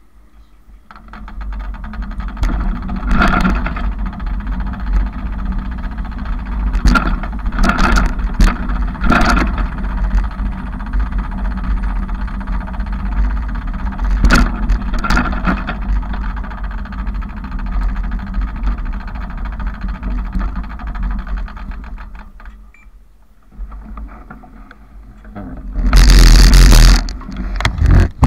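Bicycle riding noise: a steady low rumble with several sharp knocks and rattles from the bike. The noise drops away, then a very loud rushing burst comes near the end.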